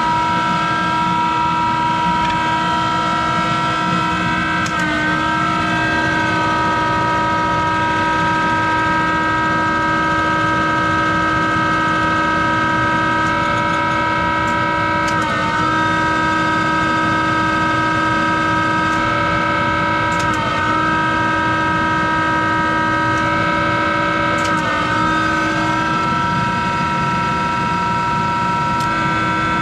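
Monarch 10EE lathe's motor-generator drive running: a steady hum of several pitched tones that wavers briefly every few seconds.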